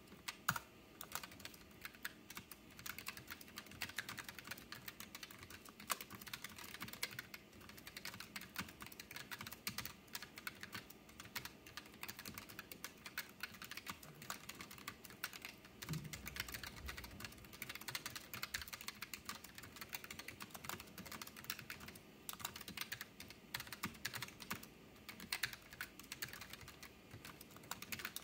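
Continuous typing on a K1 mechanical keyboard with brown switches, which are tactile rather than clicky: an uneven, fast run of key clicks and key bottoming-out. There is one duller low thud about sixteen seconds in.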